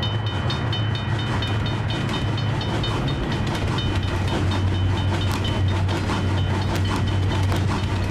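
Train passing sound effect: a steady low rumble under a quick ringing tick that repeats about five times a second, like a level-crossing bell. Sharper wheel clicks stand out more in the second half.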